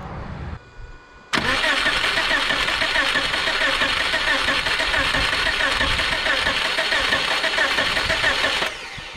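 Subaru Outback's EJ25 2.5-litre flat-four cranking on the starter with no spark for about seven seconds, starting suddenly and cutting off near the end. The cranking rhythm is uneven: one of the four compression strokes stands out from the others, a sign of unequal compression in one cylinder that the mechanic takes for a mechanical fault.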